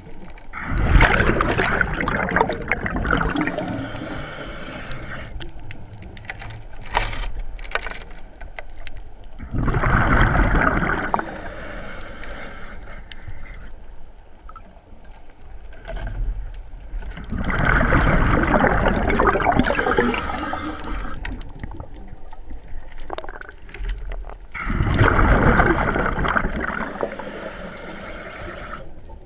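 Scuba diver breathing through a regulator underwater: four long bursts of exhaled bubbles gurgling out, about every seven seconds, with quieter stretches between breaths.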